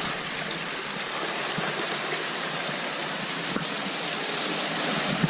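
Flowing stream water, a steady rushing noise, with a couple of faint knocks.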